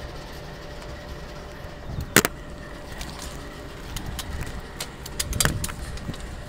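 Union Pacific GE diesel locomotive running with a steady low rumble. A sharp click about two seconds in, then scattered knocks and rubbing from close handling.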